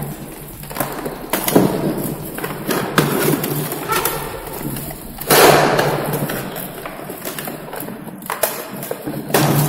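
Knocks, thumps and scrapes of a water purifier's housing being lifted, tilted and set back down by hand, several separate handling noises with the loudest about five seconds in.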